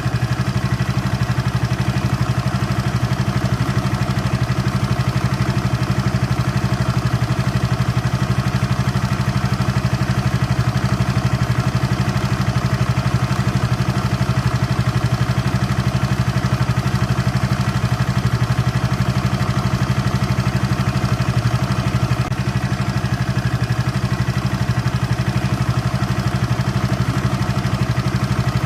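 Water-cooled engine idling steadily with an even, rapid pulse, dipping briefly about 22 seconds in.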